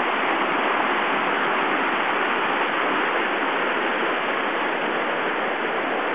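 Creek running high and fast with snowmelt: a steady, even rush of swift water.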